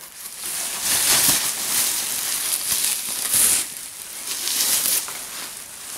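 Plastic bubble wrap crinkling and rustling as the thick packaging is cut open with a knife and pulled off a wooden sign. The noise is uneven and fades near the end.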